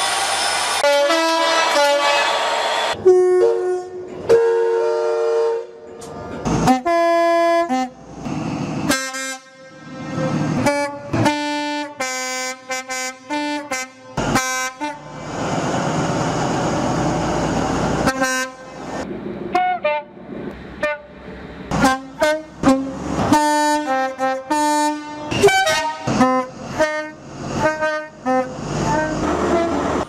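Two-tone train horns, mostly from High Speed Train (InterCity 125) power cars, sounded in many short blasts at two alternating pitches, each clip cutting abruptly into the next. About halfway through, a few seconds of a train's engine and running noise come between the horns.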